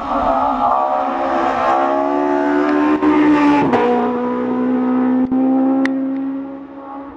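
Group H hillclimb race car's engine under full throttle through a bend. The revs climb for about three and a half seconds, an upshift drops the pitch abruptly, and the note then holds steady as the car pulls away and fades.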